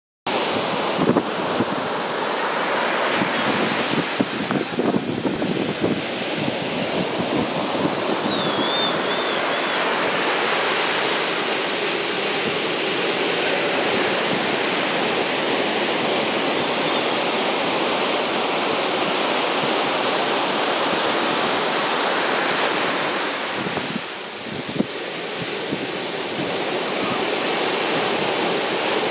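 Ocean surf breaking on a sandy beach: a steady, dense rush of waves that swells and eases, dipping briefly about four-fifths of the way through.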